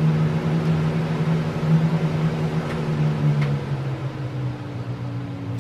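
Fan-Tastic Vent roof exhaust fan running, with a steady motor hum and a rush of air. Two faint clicks come near the middle, and part of the hum drops away about three and a half seconds in.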